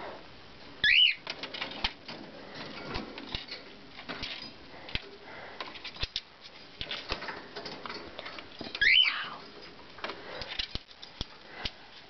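Cockatiels calling: two loud whistled calls that swoop up and down in pitch, about a second in and near nine seconds, with scattered clicks and rustles from the birds moving about between them.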